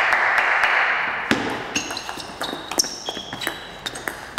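Table tennis rally: a celluloid ball being struck and bouncing on the table in quick clicks, with short high squeaks of players' shoes on the court floor in the middle. A loud rush of noise opens it and fades over the first second.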